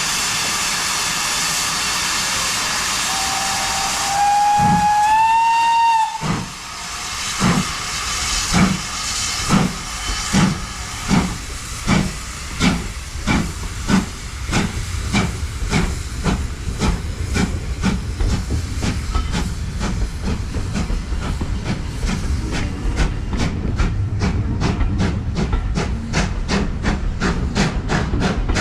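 Two-cylinder GWR Manor class steam locomotive 7812 Erlestoke Manor pulling away: a steady hiss of steam, then the locomotive's whistle about three seconds in, held for about three seconds and rising slightly at its end. Exhaust beats from the chimney follow, slow at first and quickening steadily as the train gathers speed, over the rumble of the passing coaches' wheels.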